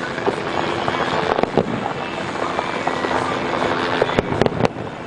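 Fireworks bursting at a distance: a continuous rumble and crackle of shells, with two sharp bangs about a second and a half in and a quick run of three near the end.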